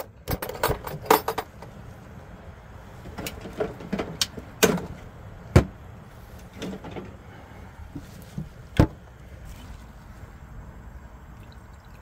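Latches and lid of an ICECO VL60 fridge freezer being worked: a series of sharp clacks and knocks. There is a cluster in the first second and a half and more a few seconds in, with the loudest single knocks at about five and a half and nine seconds.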